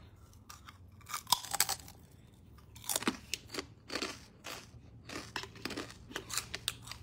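Close-up crunching and chewing of a crispy fried snack, with irregular sharp crunches coming in clusters throughout.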